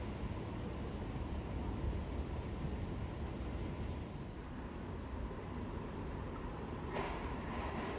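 Crickets chirping over a steady low rumble of background noise, with a sudden sharper sound about seven seconds in.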